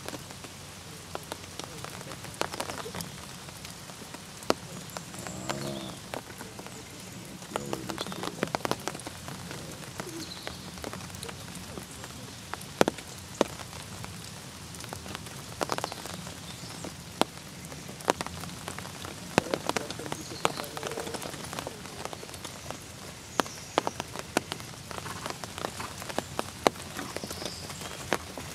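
Steady rain, with irregular sharp ticks of drops striking close by.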